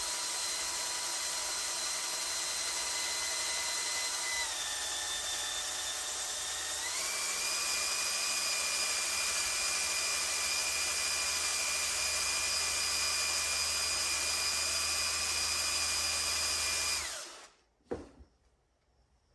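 Electric drill running steadily as it bores into the magnesium crankcase of a Husqvarna 262 XP chainsaw for a helicoil. Its whine drops slightly in pitch about four seconds in, rises again a few seconds later, then stops suddenly near the end, followed by a single click.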